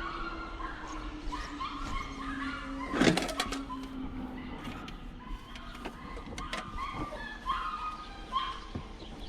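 Ducks calling with many short, repeated quacks, a loud knock about three seconds in, and a steady low hum that slowly drops in pitch over the first few seconds.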